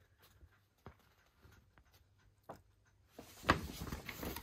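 Paper poster being handled: a few faint taps, then paper rustling and crinkling from about three seconds in.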